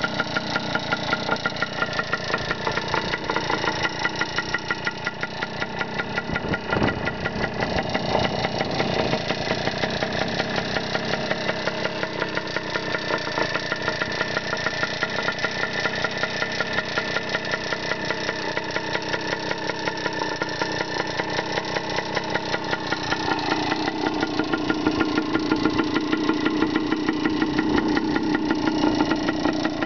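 1974 Hodaka Dirt Squirt's 100cc single-cylinder two-stroke engine idling steadily after a fresh restoration, with a rapid, even firing beat. It runs a little louder over the last few seconds.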